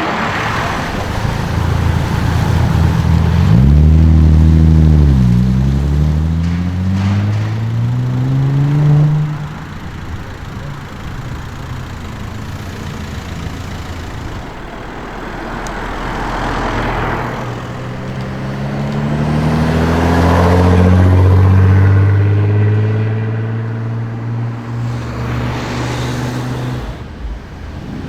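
Audi RS4 B5's twin-turbo V6 accelerating hard. The pitch climbs, drops briefly at a gear change and climbs again before cutting off. A second pull later rises and then fades away.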